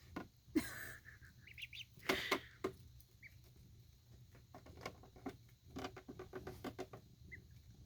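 Ducklings giving a few short, soft peeps among scattered light taps and rustles.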